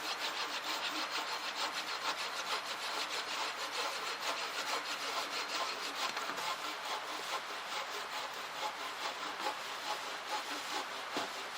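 Firewood being cut with a hand saw, in fast, even back-and-forth strokes.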